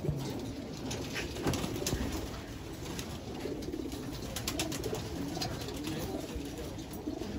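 Many domestic racing pigeons cooing together, an overlapping warble that never stops, with scattered light clicks and taps among them.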